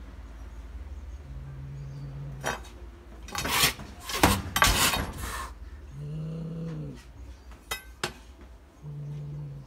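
Tabby cat giving a defensive warning: a low, drawn-out growl, then loud hissing and spitting for about three seconds with its mouth wide open, then growling again with a couple of sharp spits.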